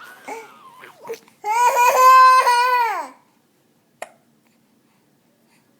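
Young child's voice: short babbling sounds, then a long high-pitched squeal held for nearly two seconds that drops in pitch as it ends, followed by a single click.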